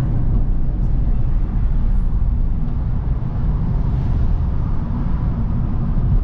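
Steady low rumble of engine and road noise heard from inside a moving car's cabin.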